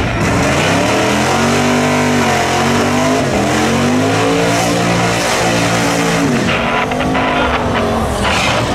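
Chevrolet Monte Carlo's engine revving up and down several times during a burnout, its rear tyres spinning and squealing on the pavement.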